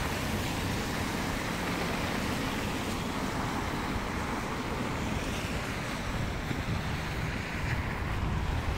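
Steady street traffic noise from cars driving on a snowy, slushy road, with wind on the microphone.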